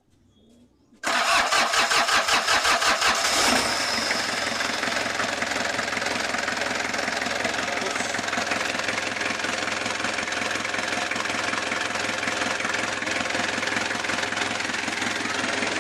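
Kia Bongo engine cranked by its starter motor, about four pulses a second, catching after about two and a half seconds and settling into a steady idle. The starter is fed through a wire run directly to the solenoid, bypassing a battery relay that was not passing current.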